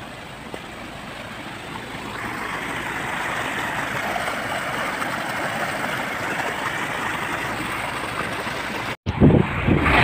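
Stream water rushing over rocks and through a metal grate, a steady rushing noise that grows louder a couple of seconds in and cuts off abruptly near the end.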